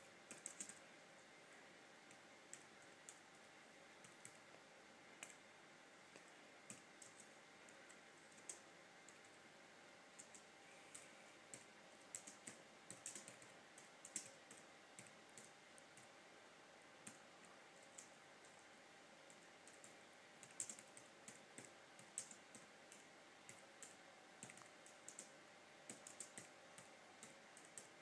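Giant African land snails (Achatina achatina) rasping at raw potato slices with their radulae while feeding: faint, irregular high-pitched clicks and crackles, some bunched in quick clusters, over a steady faint hiss.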